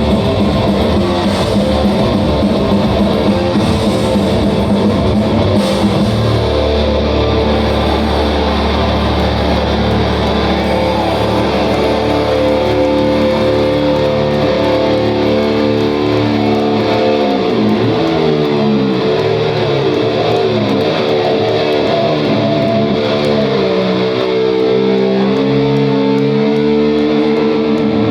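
Heavy metal band playing live with distorted electric guitars. A low bass note is held through the first half, and in the second half a guitar line bends and wavers in pitch.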